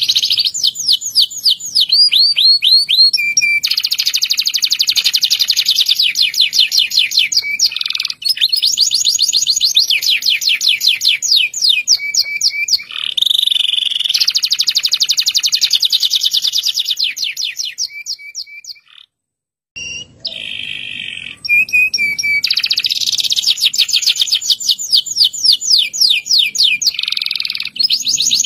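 Domestic canary singing in long rolling trills: fast runs of repeated high notes, with short breaks between phrases. The song stops briefly about two-thirds of the way through, then picks up again.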